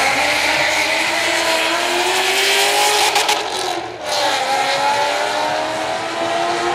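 Two drag cars, a Ford Mustang and a sedan, launching off the line and accelerating hard, engine note climbing; about four seconds in it dips briefly at a gear shift, then climbs again as the cars pull away.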